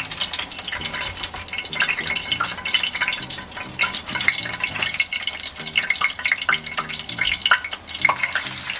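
Food frying in hot oil in a pan: a steady, dense sizzle with irregular crackles and pops, and stirring in the pan.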